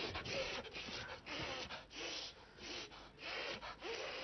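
A person gasping and breathing hard in short, irregular breaths.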